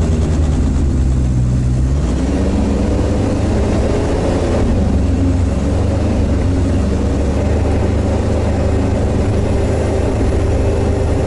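Engine of a Sherp all-terrain vehicle heard from inside its cab while driving over grassy ground; it runs steadily, with the revs rising about two seconds in and then holding.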